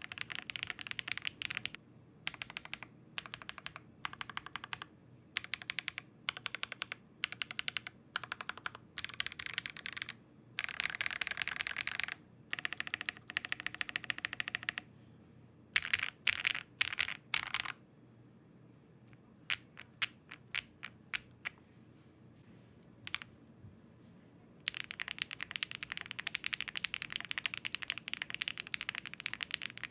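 Zoom65 V3 mechanical keyboard being typed on: bursts of fast keystroke clacks, a stretch of slower single key presses in the middle, then steady continuous typing from about two-thirds of the way through.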